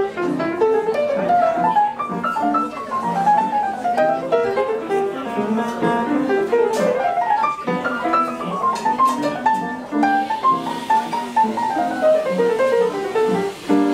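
Petrof upright piano played solo, with quick runs of notes climbing and falling over chords.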